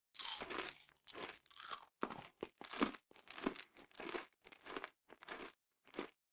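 A person biting into crunchy food and chewing it: one loud crunching bite, then a run of crunchy chews about two a second that stop about six seconds in.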